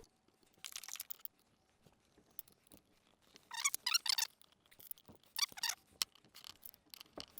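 Faint scrapes and small clicks of hands and a tool working on the plastic handheld controller of an electric chain hoist, prising off its back cover. There are three short bursts of scraping, with light clicks between them.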